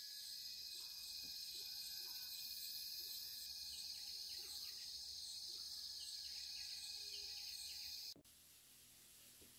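A steady, high-pitched insect chorus with a regular pulse, with a few short bird calls around the middle. It cuts off suddenly about eight seconds in, leaving faint, even outdoor background.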